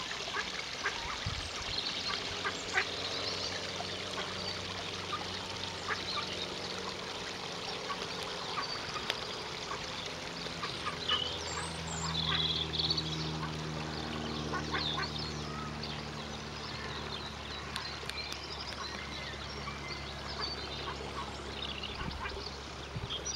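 Ducks calling: many short, high peeps and calls scattered throughout, over a low steady hum that grows louder about halfway through.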